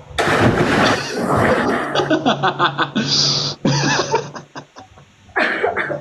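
A person jumping into a swimming pool: a loud splash just after the start, heard through a phone livestream, followed by several people laughing in bursts.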